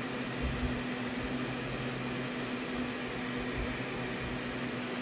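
Steady low hum over an even hiss: room background noise. A deeper part of the hum drops out a little past two seconds in.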